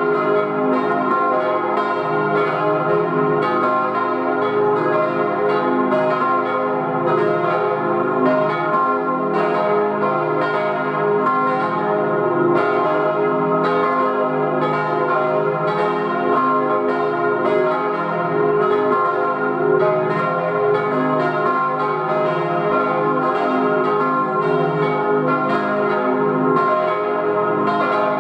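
Church bells swinging in the tower, cast in 1897 by the Rüetschi foundry and tuned c', e♭', f' and a♭', ringing together in a steady stream of overlapping strikes.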